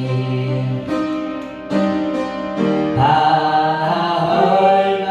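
Keyboard playing the accompaniment to a church praise song, with held chords changing about once a second and a long held note from about three seconds in.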